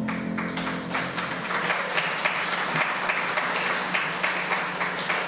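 Congregation applauding, a steady run of many hands clapping.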